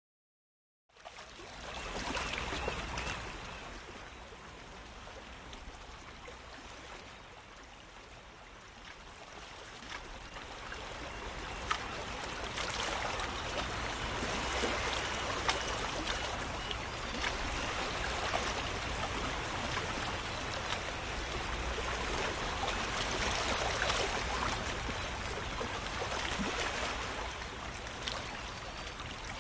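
Running water, a steady stream-like trickle with small splashes, starting suddenly about a second in and growing louder partway through.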